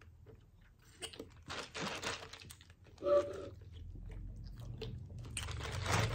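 Sipping peach lemonade through a straw from a paper cup: slurping in two stretches, about a second in and again near the end, with a brief hummed 'mm' about three seconds in.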